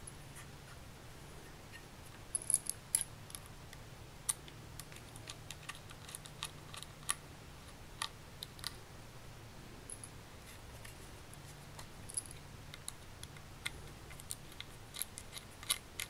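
Small screwdriver turning out the tiny side screws of a laptop hard drive's steel mounting bracket: light, irregular metallic clicks and ticks, with a few sharper ones.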